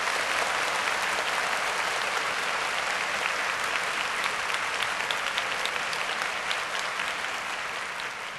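Steady applause, many hands clapping, tapering off near the end.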